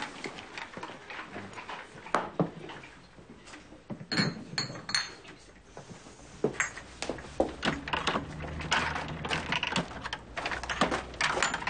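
Glass bottles and jars clinking and knocking as they are handled among plastic bottle crates, with a few bright ringing glass clinks about four to five seconds in.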